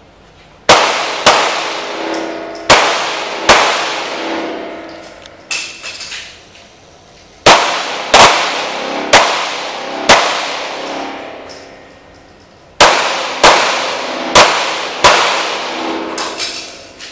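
Handgun shots, about fifteen in irregular pairs and quick strings with short pauses between, each followed by a long echo off the concrete walls of an indoor range.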